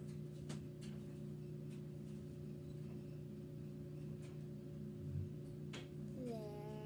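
A steady low hum of several unchanging tones, with a few light taps of a paintbrush against its paint. Near the end a child's voice starts humming or singing a note that slides upward, then holds.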